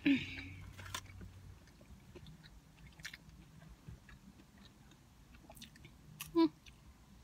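Close-up chewing and biting of french fries, soft mouth clicks and small crunches. A louder burst comes right at the start, and a brief voiced mouth sound about six seconds in.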